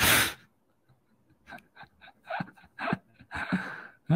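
A man laughing close to a microphone: a sharp breathy burst, then a string of short, uneven breathy chuckles.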